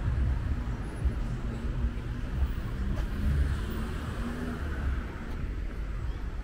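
City street traffic: cars running on a nearby boulevard, a steady noise with a low rumble.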